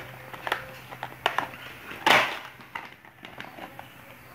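Clear plastic blister packaging and its cardboard backing card crackling and rustling as they are handled and turned over, a scatter of short crinkles with one louder rustle about two seconds in.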